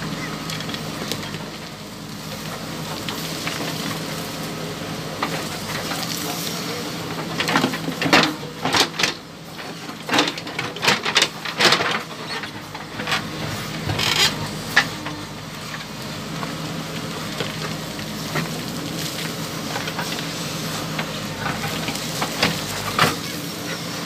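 JCB 3DX backhoe loader's diesel engine running steadily while the rear bucket digs rocky soil, with bursts of sharp clanks and scraping as stones knock against the bucket, mostly in the middle and again near the end.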